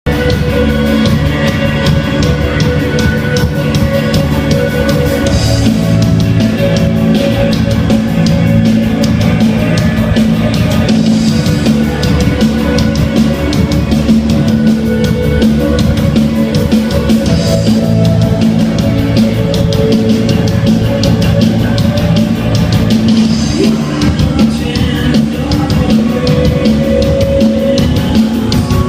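Rock band playing live, with a drum kit keeping a steady beat under guitars.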